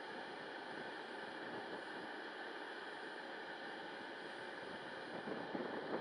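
Wind blowing across the microphone: a steady rushing hiss, with gusts buffeting a little harder near the end.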